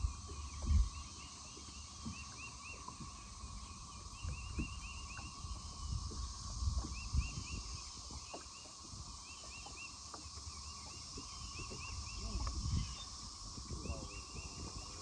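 Outdoor animal chorus: bursts of short, quickly repeated chirps over a steady high hiss, with a few low thumps from the boat.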